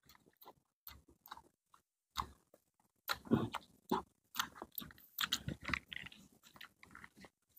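Close-miked chewing and mouth sounds of people eating squid and rice with their hands: soft, irregular smacks and chews, clustered in the middle of the stretch.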